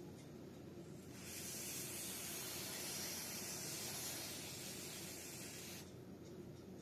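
Aerosol can of silicone lubricant spraying onto the spring of a hand gripper to cure its squeak: one steady hiss of about five seconds, starting about a second in and cutting off sharply.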